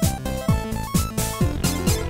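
Electronic background music with a steady beat and falling bass notes.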